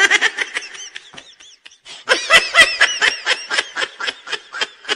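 A person laughing in rapid, pitched 'ha' pulses: a peal that fades out over the first second or so, then a second, louder run of laughter from about two seconds in.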